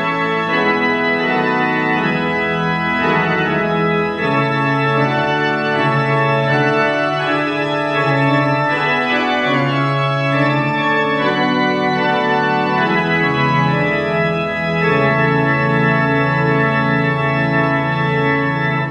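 Church organ playing the closing postlude after the benediction: full sustained chords over a moving bass line, cutting off suddenly at the very end.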